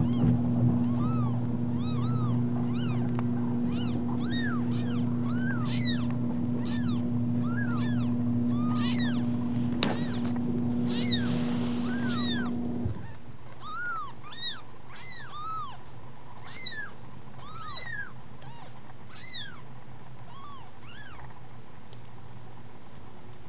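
Very young kittens, eyes just opening, mewing over and over in short, high, thin cries that rise and fall in pitch. A steady hum runs underneath and stops about halfway through.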